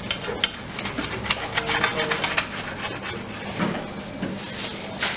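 Knife sawing through the toasted crust of a large grilled sandwich: a quick run of crisp crunches and scrapes over the first couple of seconds, then a short hiss near the end.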